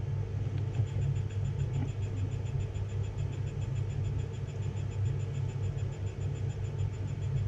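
A 3D pen's small feed motor running at a slowed feed speed as it pushes filament through the hot nozzle, a fast, even ticking whine that starts about a second in and stops just before the end, over a steady low hum.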